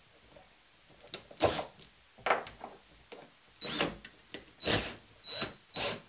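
DeWalt cordless drill being readied with a hole saw bit: a series of short clicks and rattles at the chuck, with two brief blips of the drill motor whining.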